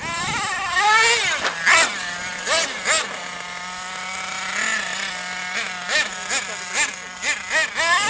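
Thunder Tiger MTA4 radio-controlled monster truck's 4.6 cc S28 nitro engine revving up and down again and again with the throttle as the truck drives, a high buzzing whine that holds a steadier pitch through the middle.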